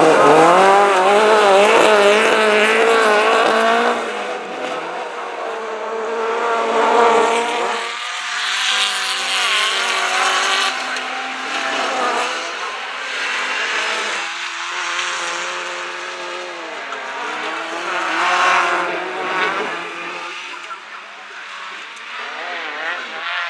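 Old saloon folkrace cars racing on a dirt track, their engines revving up and down with pitch that wavers as they rise and fall, over gravel and tyre noise. It is loudest in the first few seconds, then eases off.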